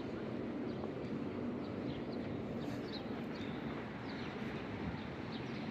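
City street ambience: a steady hum of traffic, with small birds chirping briefly now and then.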